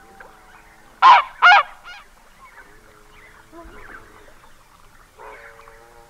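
Red-breasted goose calling at close range: two loud, high-pitched, squeaky notes in quick succession about a second in, then a fainter third. Quieter bird calls carry on in the background.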